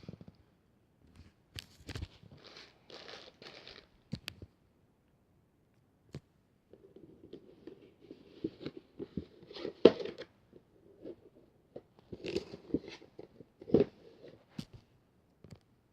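Packaging rustling and crinkling as it is handled by hand, in short bursts with pauses, mixed with light clicks and a few sharper knocks of small items being set down or moved, the loudest about ten seconds in.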